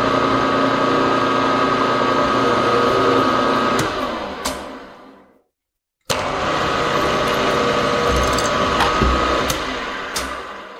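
Mill spindle motor running while power-tapping a hole in aluminium, spinning down about four seconds in. After a brief silence it runs again, in reverse to back the tap out, and winds down near the end. There are a few low knocks and clicks as the keyless chuck lets go of the tap and leaves it stuck in the hole.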